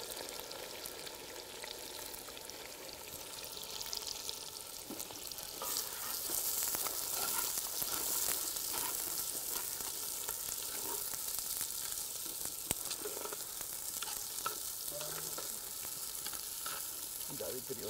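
Sliced onions sizzling in hot oil with whole spices in a pot, fried for a curry base, with a metal spoon stirring and scraping now and then. The sizzle grows stronger about six seconds in.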